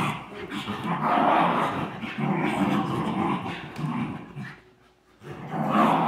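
Schnauzers play-growling as they chase and wrestle, a rough, near-continuous growling that breaks off briefly about three-quarters of the way through, then starts again.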